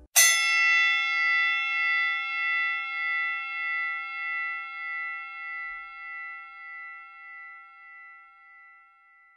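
A single struck bell-like chime that rings on and fades slowly over about nine seconds, its loudness gently wavering as it dies away.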